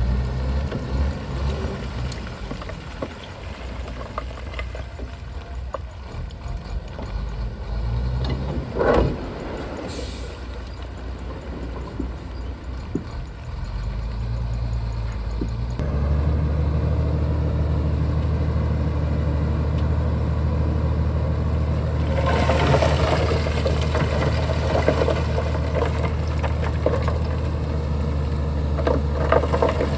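Shantui bulldozer's diesel engine running at low revs, then opening up about halfway through and holding steady under load. Rattling and scraping noise joins in over the last third.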